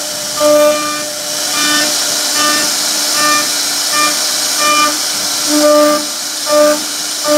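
CNC wood router spindle carving grooves in a wooden panel: a steady high-pitched whine over a cutting hiss. The whine swells in regular pulses about once every second.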